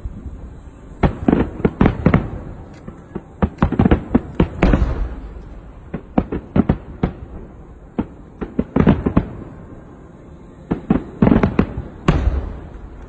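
Fireworks display: quick volleys of sharp bangs from bursting shells, coming in clusters every second or two.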